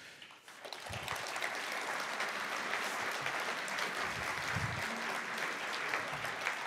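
Audience applauding steadily. The clapping starts about half a second in.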